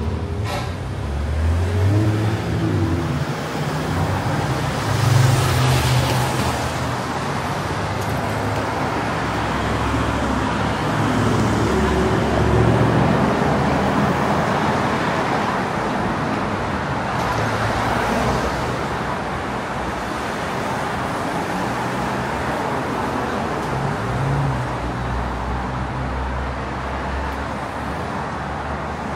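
Road traffic: a steady stream of cars going by, with several louder passes as vehicles come close.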